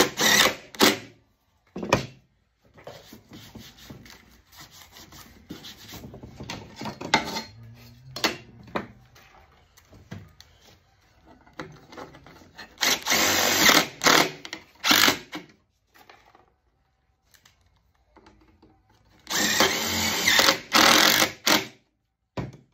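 A power tool run in short bursts of one to two seconds, loudest twice in the second half, with quieter scraping and handling between the bursts.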